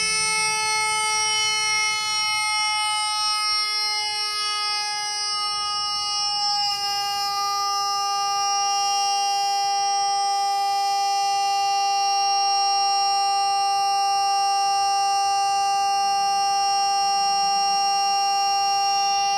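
One steady tone with overtones, held without a break, its pitch stepping slightly lower about two and about seven seconds in.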